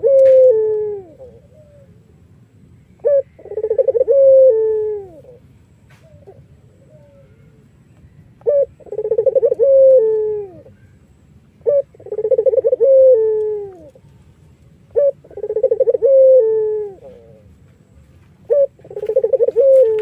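A caged Barbary dove ('puter irak') cooing over and over, about every three to four seconds. Each call is a short note followed by a rolling, trilled coo that slides down in pitch at its end.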